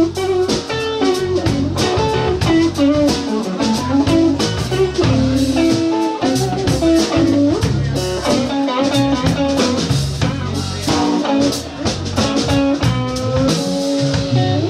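A live blues band playing, with electric guitars over a drum kit.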